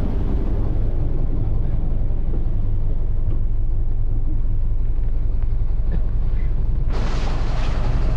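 Steady low rumble of a vehicle's engine and running noise, heard from on board. About seven seconds in, a loud hiss cuts in suddenly on top of it.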